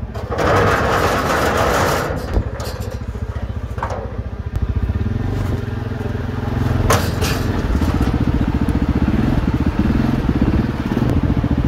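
A quad bike's engine running and revving as it is ridden up loading ramps onto a ute tray, pulsing steadily and rising in pitch about five seconds in. The first two seconds hold a rough scraping, and a few sharp knocks land along the way.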